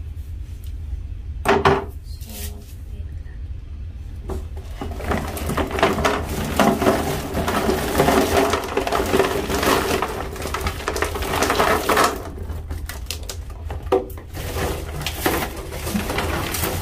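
Hard objects clattering and knocking in a container. A few separate knocks come first, then several seconds of dense rattling and rushing in the middle, then a few more knocks.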